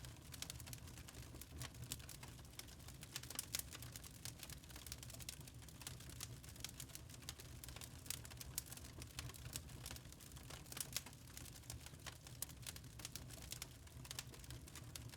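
Wood fire crackling in a fireplace: irregular small pops and snaps over a low, steady rumble of the flames.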